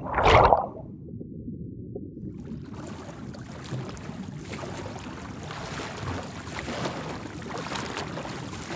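Underwater ambience sound effect: after a short burst at the very start, a low watery rumble, joined from about two and a half seconds in by a steady hiss of water with faint scattered clicks.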